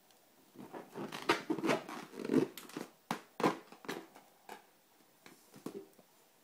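Irregular taps and rubbing on a balloon, dense for the first few seconds, then a few scattered taps.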